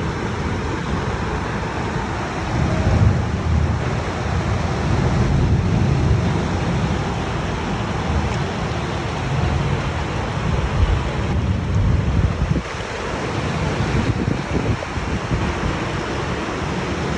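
Steady roar of a windstorm, with strong gusts buffeting the microphone in an uneven low rumble.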